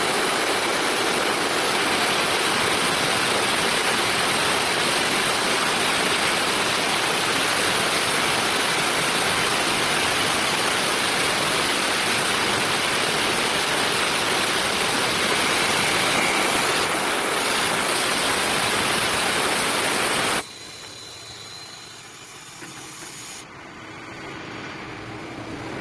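Pipe-cutting circular saw machine running with a loud, steady hiss as it cuts metal pipe. The noise stops abruptly about twenty seconds in, leaving a much quieter background noise that slowly grows louder.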